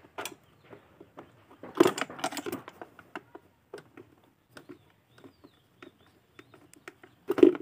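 Screwdriver working the screws out of a motorcycle's air filter cover: scattered small clicks and scrapes of metal, with two busier clusters about two seconds in and near the end.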